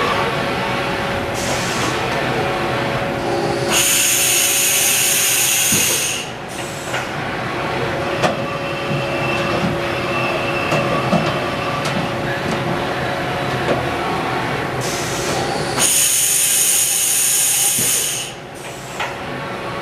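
Haas VF-2 Super Speed CNC vertical machining center running, with steady mechanical noise and scattered clicks. Twice, about four and sixteen seconds in, a loud high-pitched hiss with whining tones comes in for about two seconds and then cuts off.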